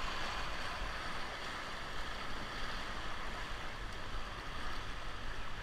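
Steady rush of river current around a whitewater raft, an even wash of water noise with a low rumble underneath.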